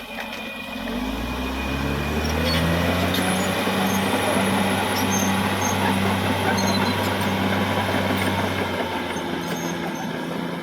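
Caterpillar D6R XL bulldozer's diesel engine revving up over about two seconds, then running steadily at high revs, easing off near the end.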